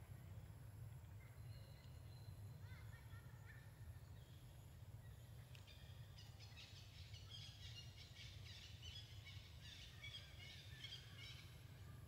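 Faint outdoor ambience: a steady low rumble with small birds chirping. About halfway in, a run of rapid high chirps lasts several seconds.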